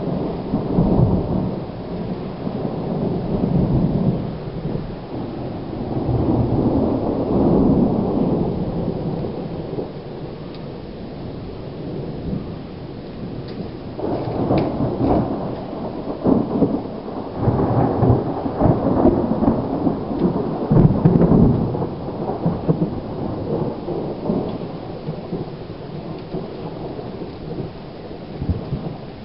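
Thunder rolling in long, overlapping rumbles from a lightning storm, over steady rain. About halfway through a sharper, crackling peal begins. It swells to the loudest point and then rumbles away near the end.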